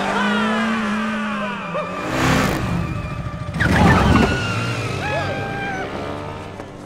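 Film soundtrack: a motorcycle engine under an action music score, with two loud rushing bursts about two and four seconds in, the second the loudest.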